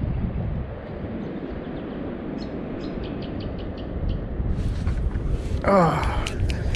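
Low wind and water rumble on the microphone of a wader in shallow water, with faint regular clicks. About four and a half seconds in comes a rush of splashing and rustling, then a man's short 'oh' that falls in pitch, the loudest sound here, followed by scattered clicks.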